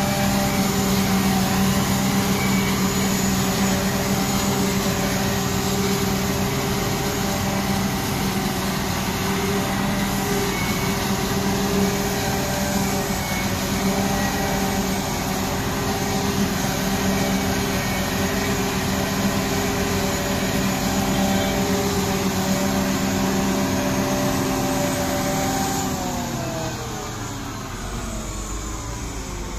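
John Deere self-propelled forage harvester running steadily while chopping maize, its engine and chopping drum giving a constant even-pitched drone, with the tractor pulling the trailer alongside. Near the end the pitch slides down and the sound grows quieter.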